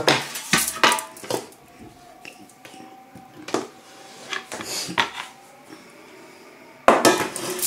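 Kitchenware being moved about on a wooden table: a plastic cutting board with a metal spoon on it and a foil-lined metal baking tray. Several sharp knocks and clatters in the first second and a half, a few light knocks after, and a louder scraping rustle of under a second near the end.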